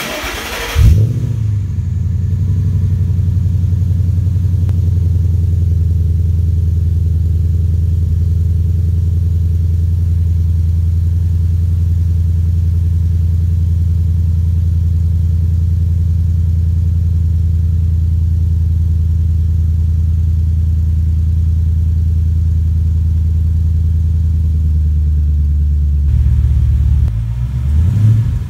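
2013 Mustang GT's 5.0 V8 cold-starting through Ford Racing Touring axle-back mufflers by Borla with a Borla X-pipe: a brief crank, a loud burst as it catches about a second in, then a steady, deep cold-start idle. The note shifts near the end.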